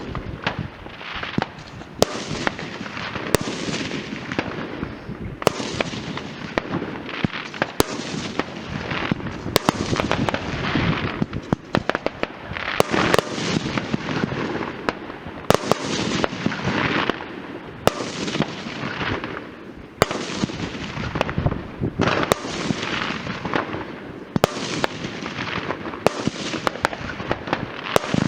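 Fireworks going off without a break: many sharp bangs at irregular intervals over a steady crackle and hiss.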